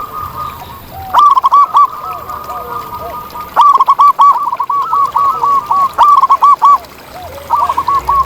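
Zebra doves cooing: loud, rapid runs of short, arched coos in three bursts, with a second, lower-pitched dove calling more softly in between.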